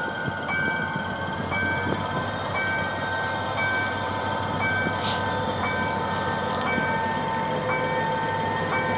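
GM GT22CW-2 diesel-electric locomotive running as it pulls a passenger train up to a level crossing, its engine rumble steady. Over it sounds the crossing's warning signal: two electronic tones alternating, high and low, about one a second.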